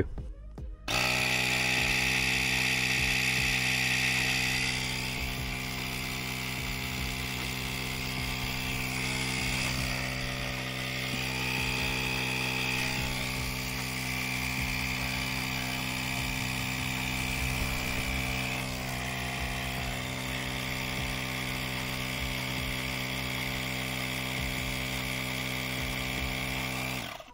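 CENXINY cordless tyre inflator's small electric compressor switched on about a second in and running steadily without load, nozzle not on a tyre: a steady pitched motor hum with a higher whine, somewhat louder for the first few seconds, measuring about 70 decibels at two feet. It stops right at the end.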